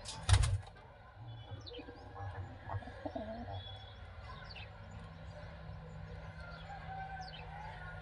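Pigeons: soft cooing and short thin high chirps, with a brief loud rustle about a third of a second in.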